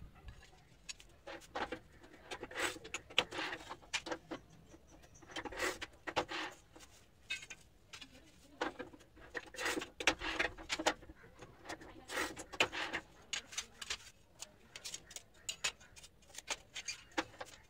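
Ceramic tiles clinking and clattering as they are handled and set down on a concrete floor, in clusters of quick clicks and knocks with short pauses between.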